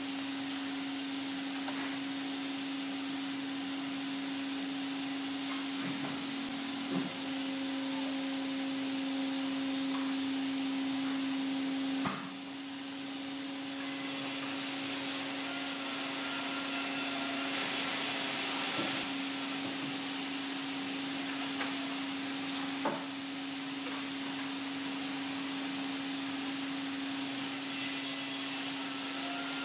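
Vertical single-beam stave-wood splitter running with a steady hum, with a few sharp knocks as the log is handled. A louder hiss comes in for a long stretch in the middle.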